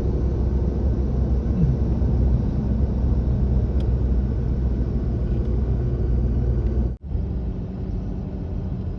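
Steady road and engine noise of a moving car heard from inside the cabin, mostly a low rumble, with a momentary break about seven seconds in.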